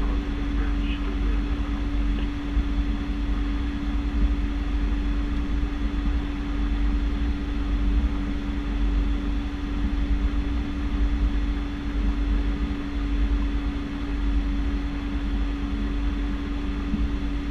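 Twin turboprop engines of a Piper PA-31T Cheyenne II running at low taxi power: a steady hum with one constant tone over a low rumble.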